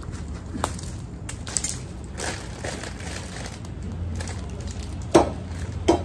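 Newly lit wood campfire crackling, with scattered sharp snaps, the loudest two near the end. Mixed in is the crinkle of a plastic bag of marshmallows being handled.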